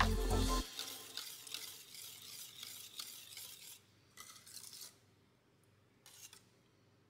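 Background music cuts off in the first second. Then a wire whisk stirs chocolate pudding in a stainless steel pot, a soft scraping swish that fades out. A few short strokes come about four and six seconds in, with near-silence between and after.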